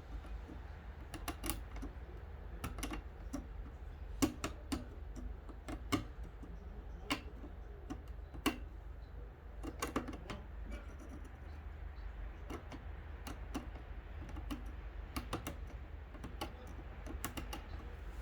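Irregular light clicks and taps of small hard parts and tools being handled while a fishing rod's reel seat hardware is worked on, over a low steady hum.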